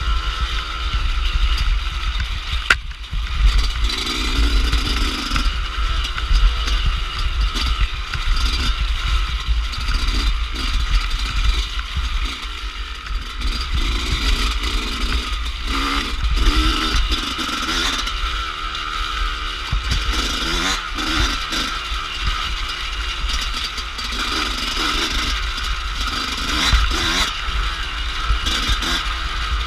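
Off-road dirt bike engine under way, its revs rising and falling as the rider works the throttle over a rutted mud track, with a steady heavy rumble of wind buffeting the on-board camera's microphone and scraping and clattering from the bike over the ruts.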